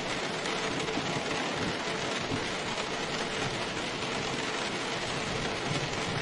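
Steady rain falling, an even unbroken hiss, with a faint steady hum underneath.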